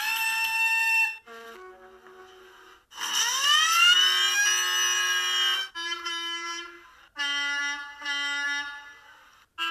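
A run of animated-cartoon railway sound effects: a steam whistle ending about a second in, then a siren that winds up in pitch and holds for about three seconds, followed by several steady horn blasts.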